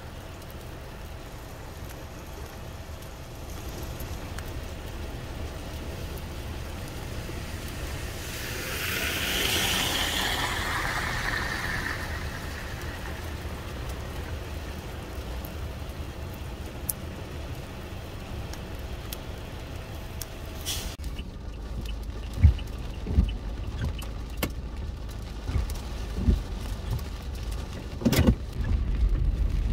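A car passing on a wet road, its tyre hiss swelling and fading about ten seconds in, over a steady wash of rain and traffic. Toward the end, several short low thumps.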